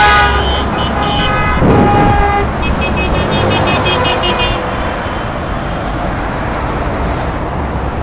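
Motorway traffic passing below with vehicle horns sounding: a long horn blast in the first couple of seconds, then a quick run of short toots. After that comes the steady rush of tyres and engines.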